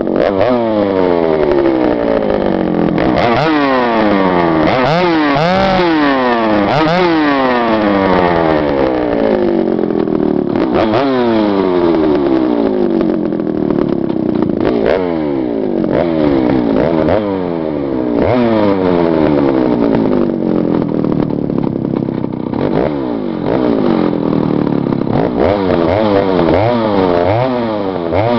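Stihl 076 AVEQ vintage chainsaw, a 111cc two-stroke, cutting old wood: the engine revs shoot up and sag again every second or two, holding lower for a while in the middle.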